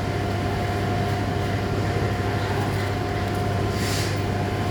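A large engine running steadily with a constant low drone and a faint steady whine, with a brief hiss about four seconds in.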